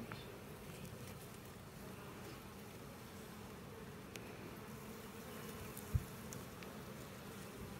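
Honeybees buzzing steadily around an open hive during an inspection, with one short low thump about six seconds in.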